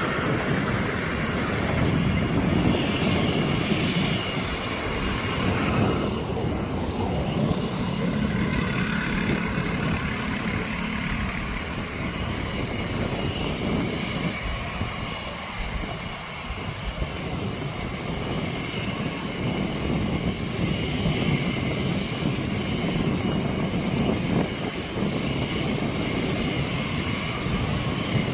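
Airbus A320's jet engines running, a steady, continuous noise with faint humming tones that holds throughout.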